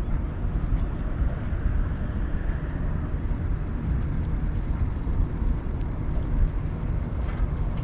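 Wind buffeting the microphone: a steady low rumble that swells and dips slightly.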